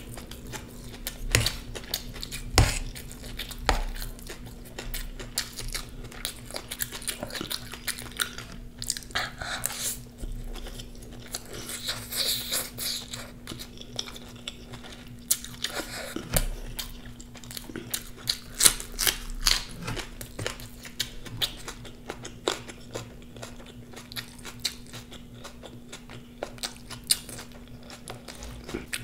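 A person chewing and biting food close to the microphone, with frequent sharp crunches.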